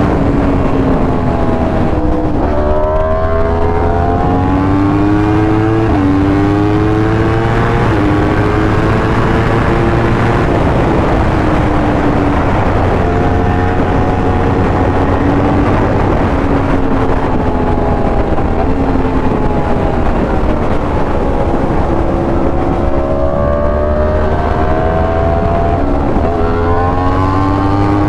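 2020 Yamaha R1's crossplane inline-four through an SC Project exhaust, riding under load: the engine note climbs and drops sharply with several upshifts in the first ten seconds, holds steadier for a while, then climbs again and shifts near the end.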